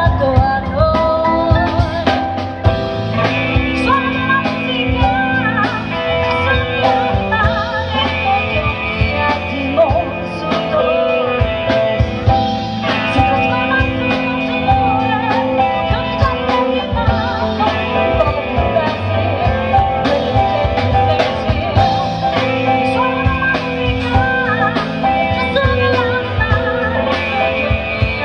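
Live band playing a song with a steady drum beat, bass, electric guitar and keyboard, and a woman singing lead into a microphone.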